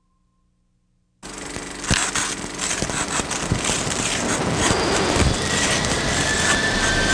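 A loud, dense rushing and rumbling noise cuts in suddenly about a second in and keeps going, with scattered crackling clicks and a faint high whistling tone near the end.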